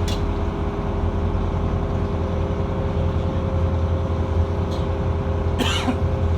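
Cruise boat's engine running with a steady low drone and hum. A short noise comes near the end.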